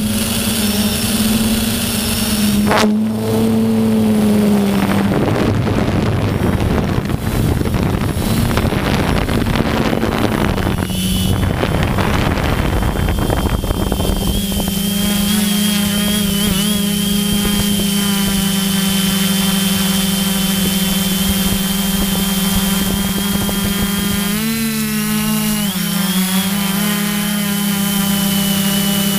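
Electric motor and propeller whine of an FPV aircraft, heard from its onboard camera. For the first half it is mixed with a strong rush of wind noise; about halfway it settles into a steady whine, which dips and wobbles in pitch briefly near the end as the throttle changes.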